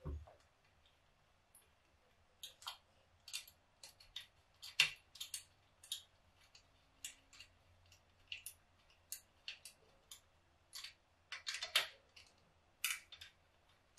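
Hand screwdriver driving small screws into a carburettor's metal body: a string of irregular sharp metal clicks and ticks as the tip catches in the screw heads and the screws turn in, loudest about five seconds in and again near the end.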